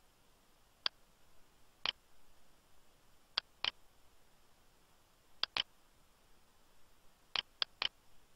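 Computer mouse button clicking about nine times, singly and in quick pairs, with a fast run of three near the end.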